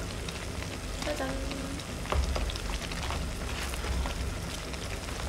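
Kitchen scissors snipping through crispy battered fried pork, with sharp clicks of the blades and a spatula. Underneath is the steady crackle and bubbling of a hotpot boiling on a portable gas burner.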